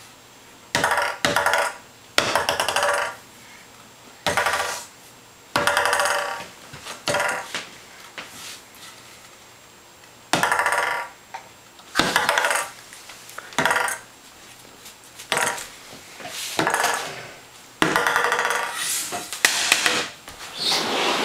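Toy noise tube sounded again and again in short bursts, more than a dozen times, each burst a buzzy pitched sound lasting under a second.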